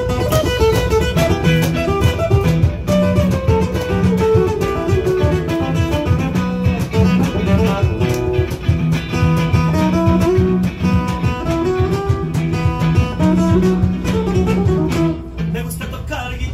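Live instrumental guitar music: an acoustic-electric guitar and an electric guitar played through an amplifier, one carrying a melody over the other's chordal accompaniment.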